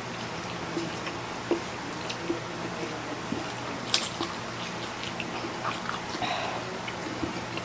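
Wet eating sounds of instant noodles being slurped and chewed close to the microphone: small sucks, smacks and clicks, with one sharper click about four seconds in, over a faint steady hum.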